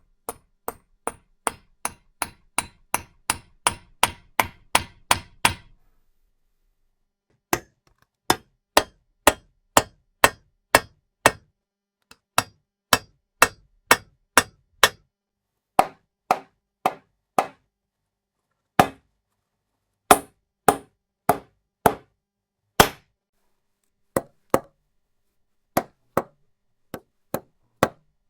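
A hammer driving nails: runs of sharp single strikes, some quick and speeding up, others about two a second, with short pauses between runs as the material struck changes.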